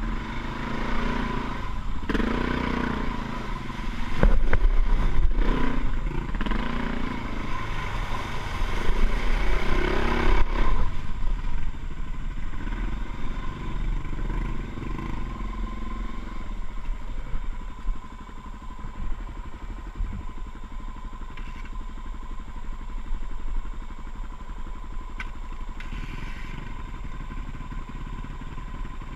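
Motorcycle riding over an unpaved desert track, its engine running under load with a few sharp knocks about four to five seconds in; after about ten seconds it quietens to a lower, steadier running sound.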